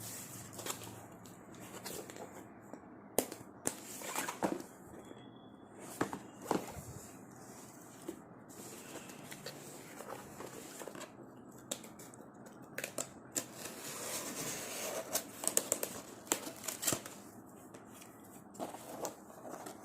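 Keyboard packaging being handled and opened: plastic and cardboard crinkling and rustling, with scattered clicks and taps.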